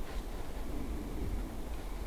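Steady low rumble with faint rustling, no distinct call.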